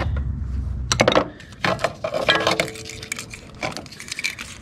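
Metal spark plug wire connectors clicking and clinking against each other and the engine as the wires are pulled out and handled. There are several sharp knocks, and a short metallic ring about two and a half seconds in.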